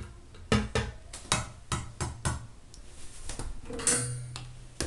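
Irregular light knocks and clicks, roughly two a second, from a toy doll and a handheld camera being handled around a bathroom sink, with a brief hiss about four seconds in.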